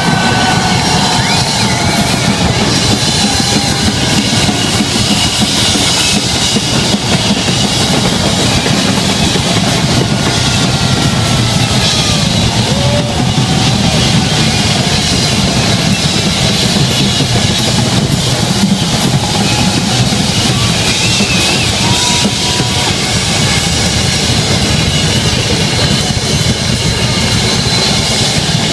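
Loud live rock jam played by a massed band of drum kits, electric guitars and basses, going without a break.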